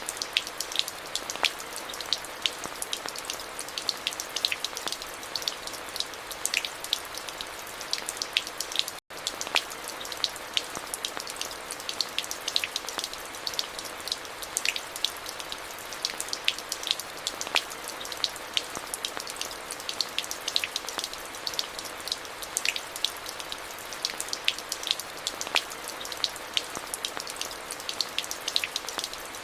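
Steady rain: an even hiss with many close, sharp drop taps scattered through it. The sound cuts out for a split second about nine seconds in.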